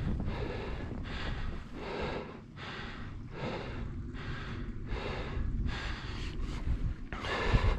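A man breathing hard in a steady rhythm of loud, hissy breaths, about one every half to three-quarters of a second, as he walks.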